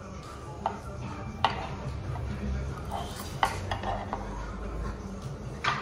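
Metal spoons clinking and scraping against a metal pan while eating, with about half a dozen sharp clinks at irregular intervals over a low steady hum.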